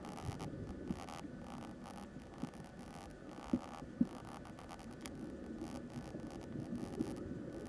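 Oil pastel sticks stroking and dabbing on a black-painted MDF chalk board, sped up 25 times into a dense, rapid rattle of scratches and taps. Two sharper taps stand out a little past the middle.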